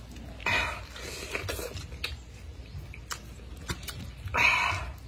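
Close-up mouth sounds of a man biting into and chewing fresh pineapple flesh, with many small wet clicks. Two louder bites or slurps come about half a second in and near the end.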